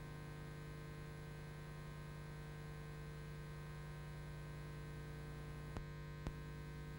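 Steady low electrical hum with faint hiss from VHS tape playback between segments. Two short clicks about half a second apart near the end.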